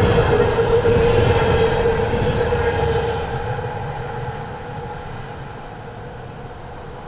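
Container freight train wagons rolling past, with the rumble of the wheels and a steady singing tone from the cars. The tone and rumble fade from about three seconds in as the end of the train moves away.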